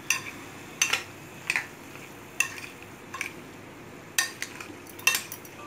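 A spoon stirring a mayonnaise-dressed vegetable salad in a glass bowl, clinking against the glass about eight times at irregular intervals.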